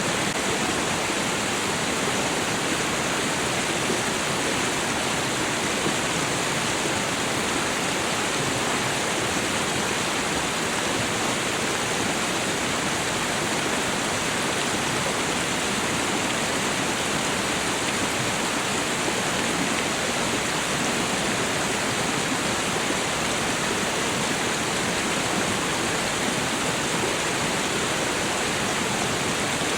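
Snowmelt water running and falling over a small waterfall: a steady, even rushing of water.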